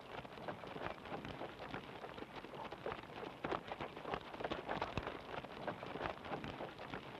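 Harness horse's hooves beating on a dirt track as it trots pulling a sulky, a fast patter of hoofbeats.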